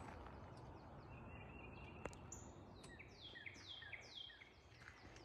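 Faint birdsong: a bird sings a run of about four quick down-slurred whistles a little past halfway, over a quiet background. A single faint click comes about two seconds in.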